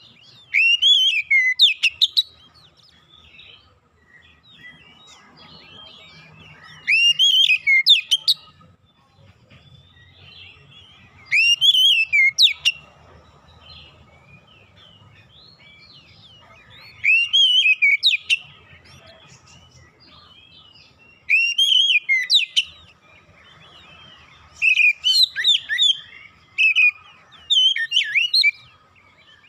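Oriental magpie-robin (kacer) singing: seven loud bursts of rich, fast-changing whistled song, each a second or two long, with softer twittering between them.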